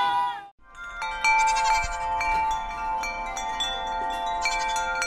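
Background music cuts off within the first half-second. A logo jingle of tinkling chimes follows: many bell-like notes struck one after another and left ringing.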